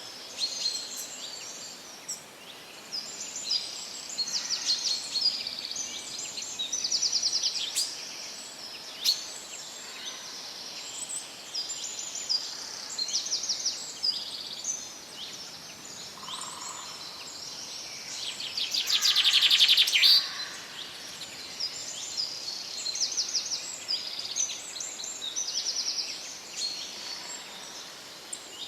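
Several songbirds singing in a forest chorus: many short chirps and trills overlapping, one louder rapid trill about two-thirds of the way through, over faint steady background hiss.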